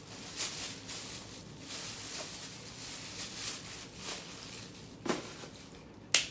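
Faint irregular clicks and rustling, with a sharper click about five seconds in and a brief louder one near the end.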